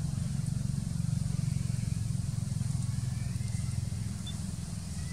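Steady low rumble of an engine running, with a faint high hiss above it.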